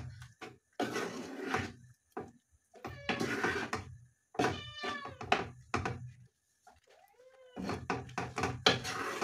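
Spatula stirring chicken through thick butter chicken sauce in a nonstick pan: repeated wet, squelching scraping strokes. Several short squeaky pitched sounds come in between them, about halfway through and again near the end.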